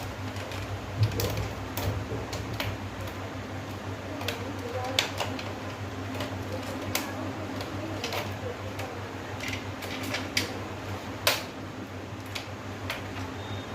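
Irregular sharp clicks and taps of small plastic parts being handled and pressed into place inside an opened LED TV, about a dozen in all, over a steady low hum.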